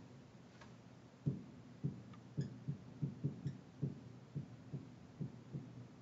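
Dry-erase marker writing on a wall-mounted whiteboard: a faint, irregular run of soft low knocks as the marker's strokes tap against the board, about two or three a second from about a second in, with a few light ticks of the marker tip.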